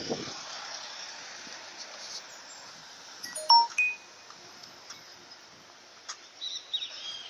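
Open-air ambience with a steady high hiss, and a brief loud ringing clink about three and a half seconds in, followed by a few short high chirps near the end.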